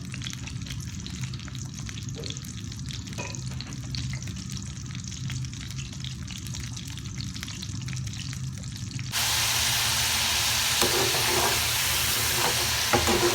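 Cornflour-coated potato fries deep-frying in hot oil: a steady, dense crackling sizzle. About nine seconds in it turns suddenly louder and brighter.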